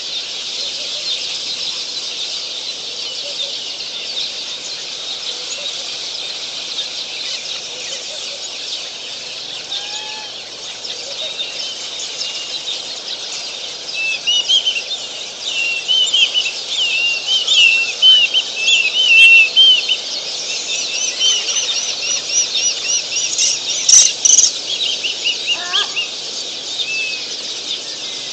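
Outdoor waterhole ambience: a steady high-pitched chorus with wild birds calling over it. From about halfway the birds break into loud bursts of rapid chirping, with a quick run of repeated high notes and a single sharp click near the end.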